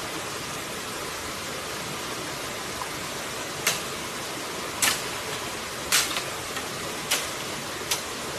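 Steady rush of a shallow stream, with five sharp splashes about a second apart in the second half as a woven bamboo basket trap is pushed into the water along the bank.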